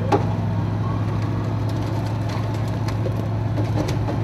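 Off-road truck engine idling steadily, with a single sharp click just after the start.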